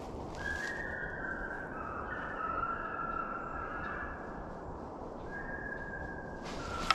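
Hunting hounds baying in the distance: several long, overlapping, wavering howls from a pack running a deer, over steady wind rumble. There is a short sharp click near the end.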